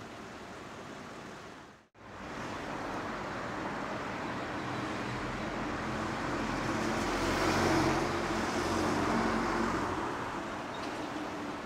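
Outdoor road-traffic noise, with a motor vehicle's engine swelling up and passing by, loudest a little past the middle. A brief drop to silence about two seconds in marks an edit in the sound.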